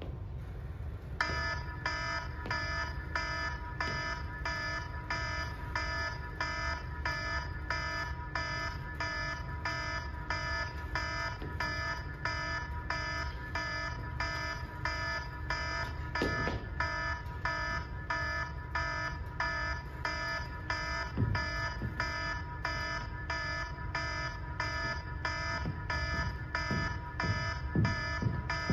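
A pulsing electronic alarm-like beep, several pitches sounding together, repeating evenly about two and a half times a second from about a second in, over a low steady hum.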